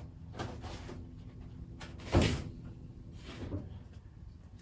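Handling noises from a tool box being moved: soft knocks and shuffles, with one louder bump about two seconds in and a smaller one about a second later.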